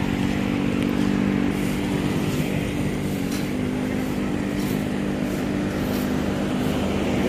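Roadside highway traffic: a steady low engine hum throughout, with vehicles passing on the road.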